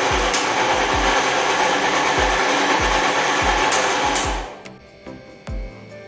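Electric mixer grinder (mixie) running loud and steady for about four seconds, grinding cooked onions and tomatoes into a purée, then switched off and winding down.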